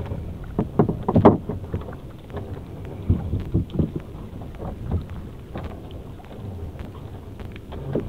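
Wet fishing net being hauled hand over hand over the side of a small boat: irregular splashes, drips and rustles of the net coming out of the water, with wind rumbling on the microphone.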